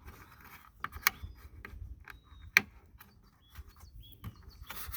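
Plastic retaining clip of a tail light lens being pressed onto the car body: scraping and light knocks, then a sharp click about two and a half seconds in. The click is softer than the solid clack that shows a fully seated clip. Faint bird chirps are heard now and then.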